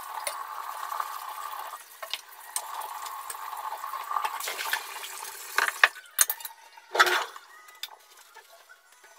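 Kitchen tap running into a sink during dish washing, then stopping about five seconds in, followed by several clinks and knocks of dishes being handled, the loudest near the end.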